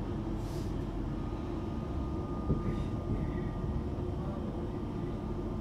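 Class 378 electric multiple unit running between stations, heard from inside the carriage: a steady low rumble of wheels and running gear with a faint steady traction-motor whine, and a single knock about two and a half seconds in.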